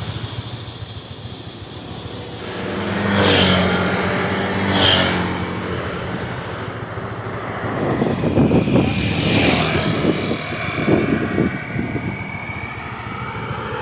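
Motorbike engine running on the road, rising in pitch as it accelerates about three and five seconds in, with wind buffeting the microphone through the second half.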